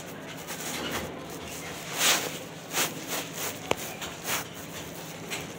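Puffer jacket fabric rustling and rubbing against the phone's microphone as it is handled, in a few uneven swishes, with one sharp click about three and a half seconds in.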